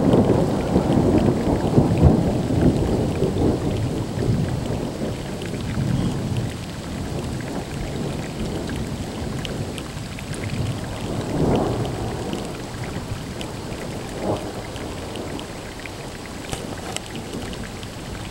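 Thunder rumbling, loudest at the start and slowly dying away, with a smaller swell of rumble about eleven seconds in. Rain falls behind it, with faint scattered drop ticks.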